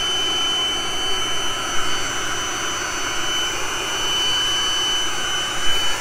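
Handheld cordless leaf blower running steadily at full blast, its rushing air mixed with a steady high-pitched whine from the motors and propellers of a Parrot Mambo mini quadcopter hovering in the airstream.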